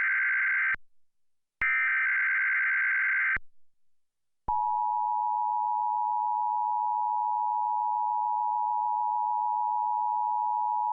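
Emergency Alert System header: a raspy digital data screech cuts off near the start, and a second identical burst lasts almost two seconds. About a second later the steady two-tone attention signal comes in and holds. These sounds mark the start of an emergency alert broadcast.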